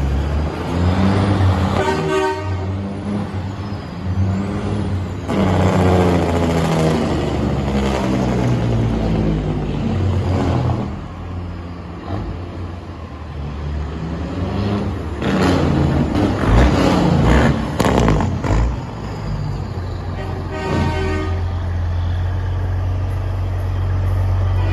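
Diesel semi-truck engines rumbling and revving up and down as tractor-trailers drive past at low speed. Two short horn blasts sound, about two seconds in and again near the end.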